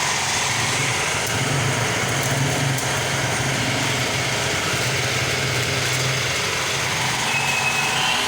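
A motor running steadily: a constant low drone under an even noise.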